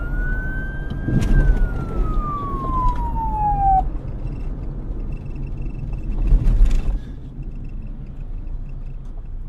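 Fire truck siren wailing: one rise in pitch and a slow fall, cutting off about four seconds in, over a steady low rumble with a couple of louder moments.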